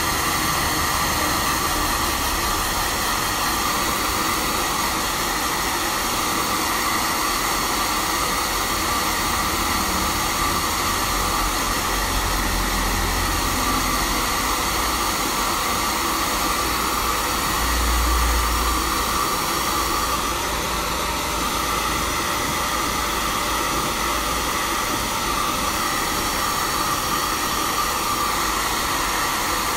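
Handheld hair dryer blowing steadily at a twisted lock of wet hair: an even rush of air with a faint whine, and a brief low rumble now and then, loudest about two-thirds of the way through.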